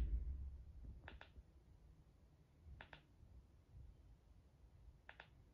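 Quiet double clicks of TV remote-control buttons being pressed, four presses spaced a second or two apart, with a low thump right at the start.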